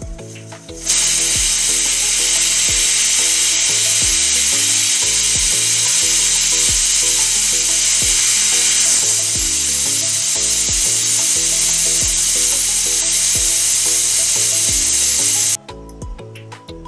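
Pressure cooker whistle letting off steam through its weight valve: a loud, even hiss that starts about a second in and cuts off suddenly near the end. It marks the cooker reaching full pressure, one of the three whistles the potato curry is cooked to.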